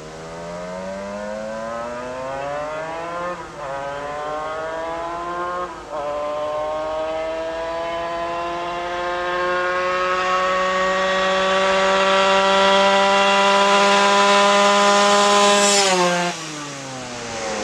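Small motorbike engine accelerating hard through the gears. Its pitch climbs, drops back at gear changes about three and a half and six seconds in, then climbs slowly and gets louder, before it falls sharply near the end.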